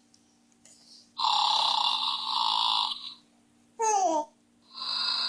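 A horse snoring: two long, rasping breaths of about two seconds each. Between them comes a short sound falling in pitch.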